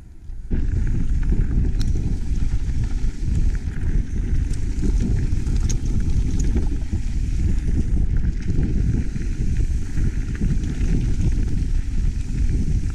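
Wind buffeting the microphone of a camera riding along on a mountain bike going downhill: a loud, steady low rumble that sets in about half a second in, with a few faint ticks from the bike and trail.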